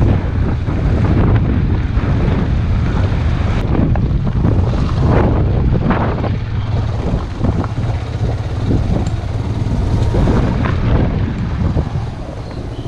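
Motorcycle riding over a rough dirt track, its engine and road noise heard through heavy wind rumble on the microphone.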